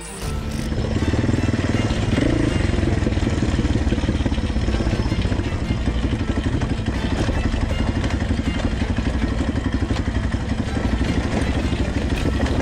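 ATV (quad bike) engine running steadily under throttle with a fast, even pulse while it is ridden over a rocky dirt trail.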